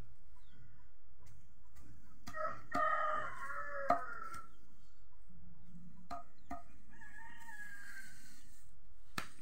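A rooster crows once, about two seconds long, starting a couple of seconds in, with a fainter call later on; scattered sharp clicks of a small blade chopping leaves against the ground.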